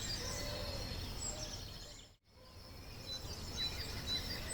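Outdoor ambience of birds chirping over a steady background hum. It fades out briefly a little past two seconds in, then fades back in.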